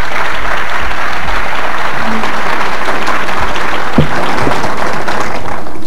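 Audience applauding, a dense clapping that dies down near the end, with a single sharp knock about four seconds in.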